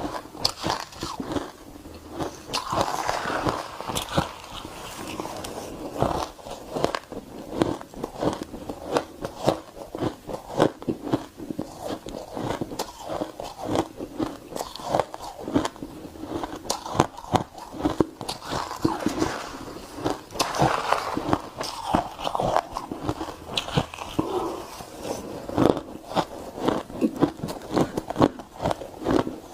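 Someone biting and chewing crunchy refrozen shaved ice, a close rapid series of sharp cracks and crunches throughout.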